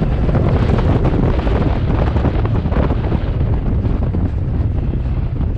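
Heavy wind noise on the microphone over a side-by-side UTV's engine running as it drives along, a steady low rumble.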